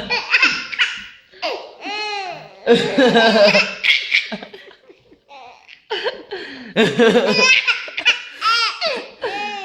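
A baby laughing hard in repeated bursts of belly laughter, with high rising-and-falling squeals.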